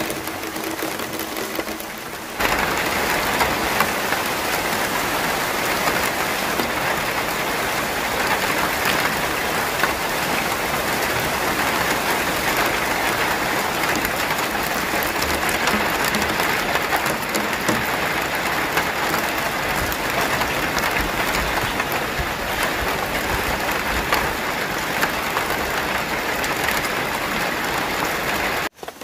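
Heavy rain pouring steadily, as a dense hiss. It gets sharply louder about two seconds in and cuts off suddenly near the end.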